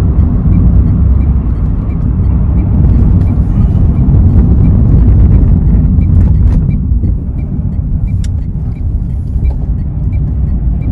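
Steady engine and road rumble inside the cabin of a 2010 Suzuki Splash with its 1.2-litre four-cylinder engine, on the move, with a faint regular ticking. The level eases a little about seven seconds in.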